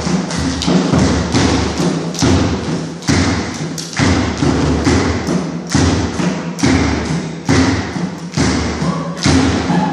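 A group stomping and clapping a steady beat, about two strikes a second, with deep thuds booming in a large, echoing room.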